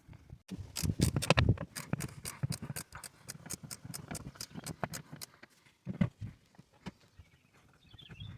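Quick irregular clicks and taps of a screwdriver working the screws out of a plastic trim cover, busiest in the first couple of seconds and thinning out after about five seconds.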